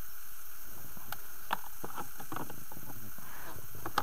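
A few faint clicks and rustles of handling aboard an inflatable PVC boat over a steady hiss, with one sharper click at the very end.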